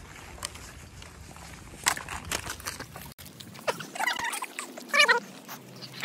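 Two short, wavering animal calls, about a second apart, in the second half, over faint rustling.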